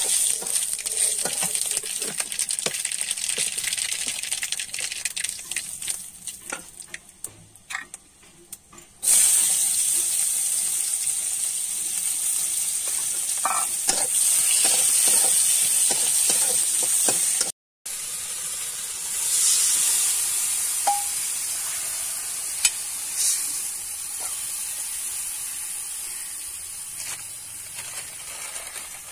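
Hot oil sizzling in an iron kadai as spices fry, with a metal spatula scraping and stirring the pan. About nine seconds in, the sizzle jumps suddenly louder as more ingredients go into the hot oil, then slowly eases off.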